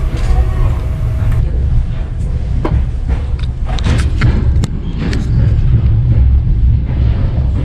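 Afrosiyob high-speed train rolling slowly, heard from inside the carriage: a steady low rumble with scattered clicks and knocks in the middle.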